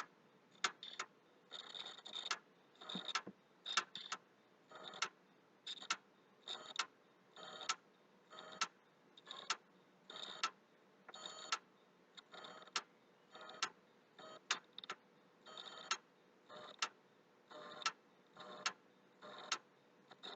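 PlayStation 3 clicking from near its hard drive: sharp clicks about once a second, some in quick pairs or short runs. The console boots slowly and reports a corrupted file system; the owner suspects the hard drive, though it has already been formatted.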